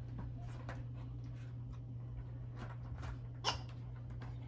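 Dog making a few short huffing sounds, the loudest about three and a half seconds in.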